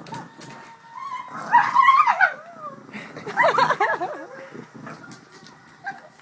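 A pug making play noises with a stuffed toy: a high, rising whine about a second in, then a wavering, warbling whine-grumble about three seconds in.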